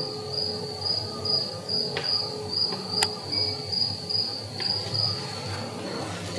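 A cricket chirping steadily, a short high chirp about two and a half times a second. A single sharp click about three seconds in.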